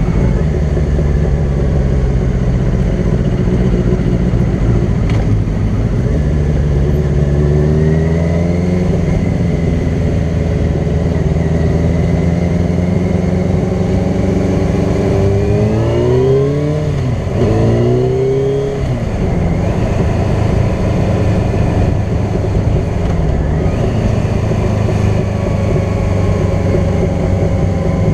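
Sport bike's engine running at highway speed under heavy wind and road rush. A little past the middle the revs drop and climb again several times before settling back to a steady note.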